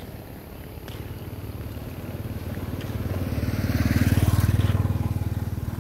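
A vehicle engine passing on the road, with a rapid low pulsing. It grows louder to a peak about four seconds in, then fades.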